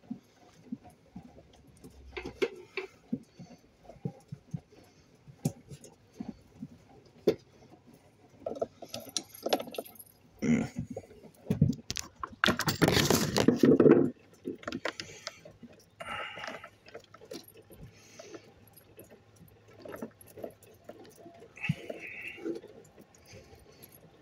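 Hands working among wires and small metal parts, making scattered metallic clinks, clicks and jangling, with a louder spell of rustling and scraping about halfway through.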